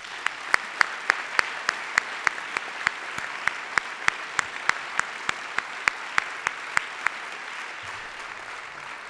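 Audience applauding. One clapper close by claps sharply and evenly, about three or four claps a second, and stops about seven seconds in, while the rest of the applause slowly eases off.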